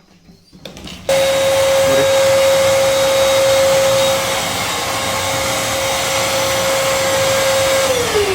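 Eureka Forbes Trendy Zip dry vacuum cleaner switched on about a second in, running loud and steady with a high whine while blowing air out through its outlet in blower mode. Near the end it is switched off and the whine falls as the motor winds down.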